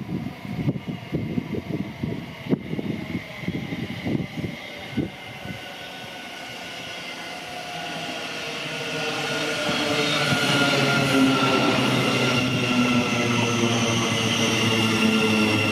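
Class 717 Siemens Desiro City electric multiple unit approaching and running past close by, its traction motors whining in several steady tones over the rumble of the wheels, growing louder from about halfway through. Wind buffets the microphone in the first few seconds.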